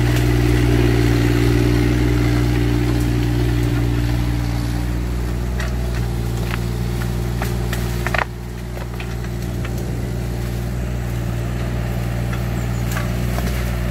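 Takeuchi TR216 mini excavator's diesel engine running steadily, with a higher whining note that fades out about five seconds in. About eight seconds in there is a sharp knock, after which the machine runs a little quieter.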